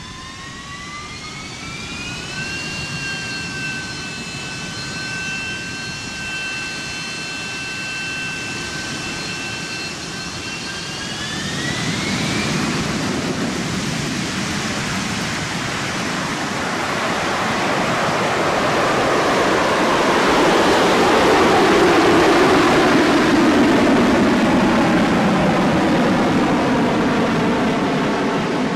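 Harrier jump jet's Rolls-Royce Pegasus turbofan: a high turbine whine rises and holds steady, then climbs again about 12 seconds in. A loud jet roar builds under it and peaks around two-thirds of the way through.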